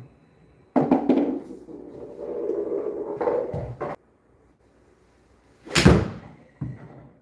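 Golf club striking a ball off a practice mat indoors: one sharp, loud crack about six seconds in, followed under a second later by a softer knock. It comes after a few seconds of muffled, indistinct sound.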